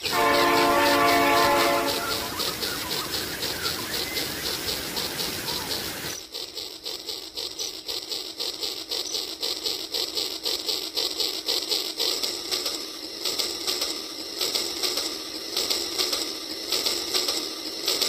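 Rail King toy train sounding its horn for about two seconds, then running along its plastic track with a fast, even clicking.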